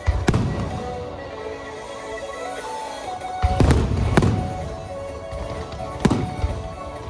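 High-altitude aerial firework shells bursting with deep booms and rumbling tails: one just after the start, a quick run of three about three and a half to four seconds in, and one more about six seconds in. Music plays underneath throughout.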